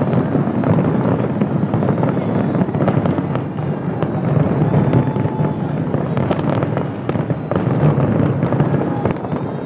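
Fireworks finale: many aerial shells bursting in quick succession, their bangs running together into a continuous rumble.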